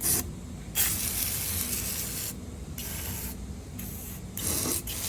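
Penetrating oil spraying from an aerosol can in several hissing bursts, the longest about a second and a half, coming out foamish.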